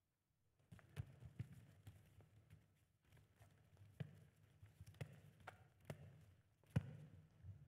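Faint footsteps on a stage floor: scattered, irregular knocks of shoes, with a sharper one about a second in and another near the end.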